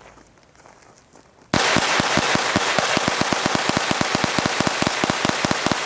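Two suppressed SIG P322 .22 LR pistols fired together in rapid fire, about ten shots a second, starting about a second and a half in and stopping near the end.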